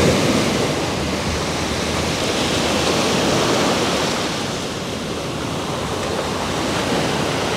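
Sea surf washing onto the shore: a steady rushing that swells and eases slowly.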